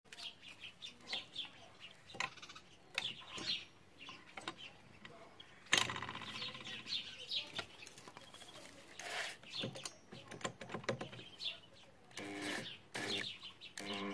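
Birds chirping in short calls in the background, with a few sharp clicks and knocks as the drill and engine are handled.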